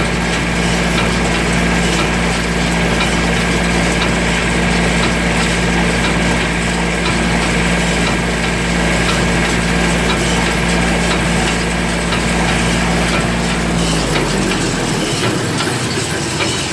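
Small tractor running an old Ford 501 square baler off the PTO at baling speed: a steady, noisy machine run with a constant engine hum. About fourteen seconds in, the hum falls in pitch and the low drone fades as the machine slows down.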